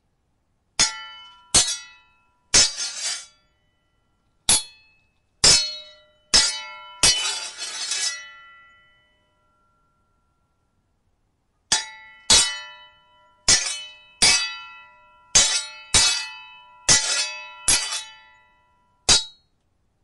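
Steel sword blades clashing: sharp ringing clangs, roughly one a second, in two runs with a pause of a few seconds between them. In the first run one clash drags on as a longer, grating scrape of blade along blade.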